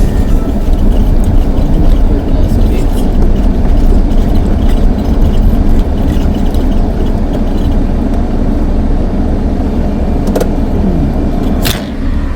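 Van driving along, its engine and tyres making a steady low rumble of road noise, with a couple of sharp knocks near the end.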